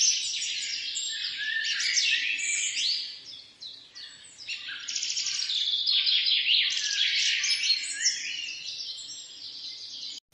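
Many birds chirping and trilling at once in a dense chorus, thinning out briefly three to four seconds in.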